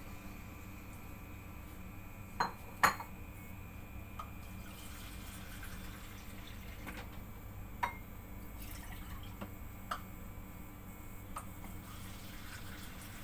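Quiet kitchen with a steady low hum and a few scattered light clicks and taps, the loudest pair about two and a half to three seconds in, others later on.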